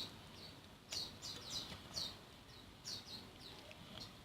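Faint birds chirping: a string of short, high, falling chirps every half second or so.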